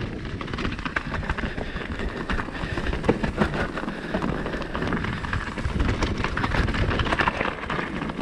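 Mountain bike riding fast down a rocky dirt trail: tyres rolling and crunching over loose stones, with a steady run of rattles and knocks from the bike as it hits rocks.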